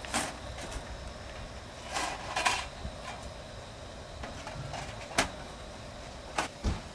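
A folding sheet-metal fire pit being handled: a few short, sharp metal clanks and scrapes as its panels are set, and crinkling as a foil sheet is laid and pressed into its base.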